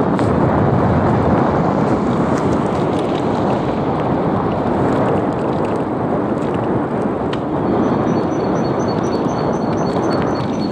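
Loud, steady rush of wind on the microphone and road noise from an electric bicycle ridden at speed. Near the end a faint, rapid high ticking joins in.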